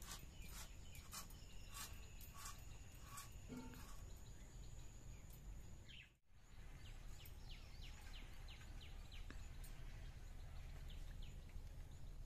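Faint, light clicks and scrapes of vegetables being peeled and cut on a boti blade, about two a second, over a steady high tone. The sound drops out briefly about halfway through, then fainter ticks and short chirps go on.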